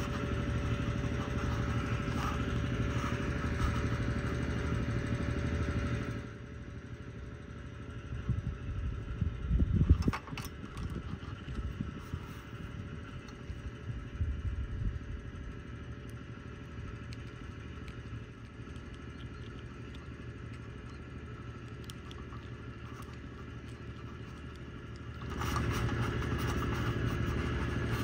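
A steady low mechanical hum like a running engine, louder for the first six seconds and again near the end, with a short knock about ten seconds in.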